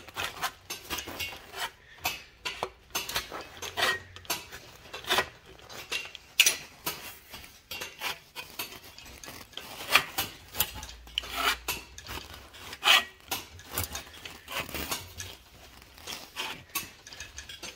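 Sheet-metal shrinker's jaws clamping a sheet-steel panel over and over: an irregular run of sharp metallic clacks, some close together, with the steel sheet rattling and rubbing as it is moved in the dies. Each stroke gathers the metal to curl the corner of the panel.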